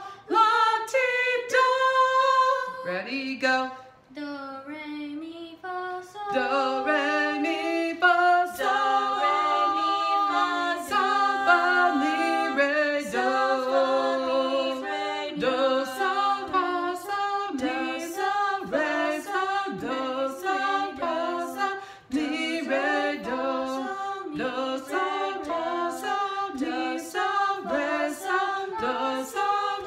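A woman and two children singing a solfège warm-up a cappella, stepping note by note through scale patterns such as do, sol, fa, sol, mi, re, do, with a brief quieter dip about four seconds in.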